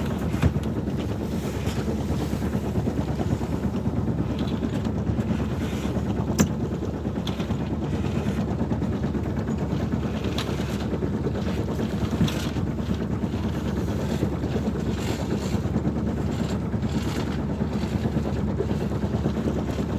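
A sailboat's water-cooled marine engine running steadily under way, with wind on the microphone and scattered sharp clicks and knocks.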